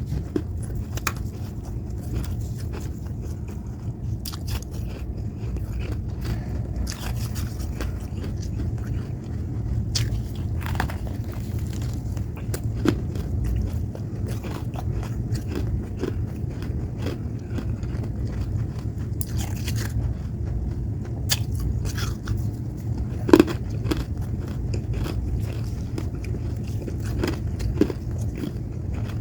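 Someone biting and chewing freezer frost: repeated short icy crunches, with one louder crunch late on, over a steady low hum.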